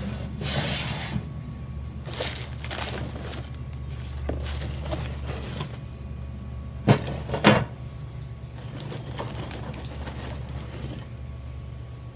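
Pieces of Prime 6 charcoal being handled and set down, with scattered rustles and light clicks and two sharp knocks about seven seconds in, over a steady low hum.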